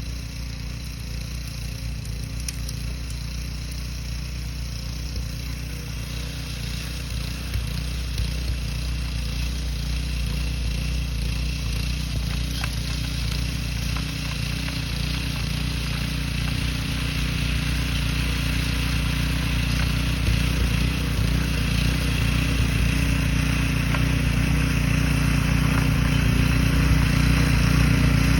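An engine running steadily, growing slowly louder.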